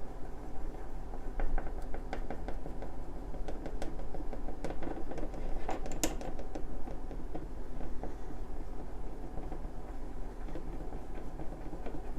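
A utensil stirring a thick basting sauce of oyster sauce, dark soy, honey and sesame oil in a small bowl, clicking rapidly and irregularly against the bowl, with a sharper tap about six seconds in.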